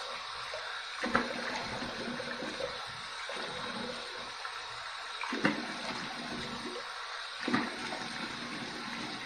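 Warm water running steadily from a sink tap for a face rinse after shaving, with three splashes as water is brought up to the face, the loudest about five and a half seconds in.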